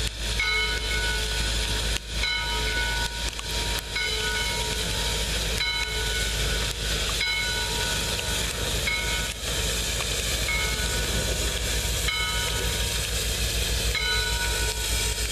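Chesapeake and Ohio 2-6-6-2 steam locomotive 1309 moving slowly, steam hissing steadily, while a locomotive bell rings evenly, one stroke about every second and a half to two seconds.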